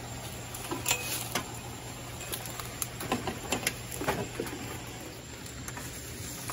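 Scattered rustling, light scrapes and clicks as a long-handled net is handled over a fence and through leaf litter, with a steady low hum underneath.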